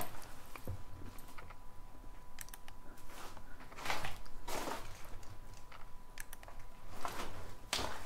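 Footsteps inside a derelict building: irregular scuffs and clicks of a person walking, the loudest steps a few seconds in and near the end.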